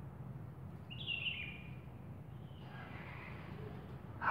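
A short bird call, falling in pitch in a few steps, about a second in, over a steady low background hum.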